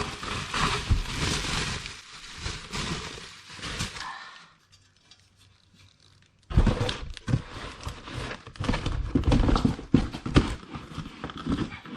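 A boxed exhaust being unpacked: packing material rustles for about four seconds, then after a short pause come a series of knocks and thumps as the parts are lifted out and handled.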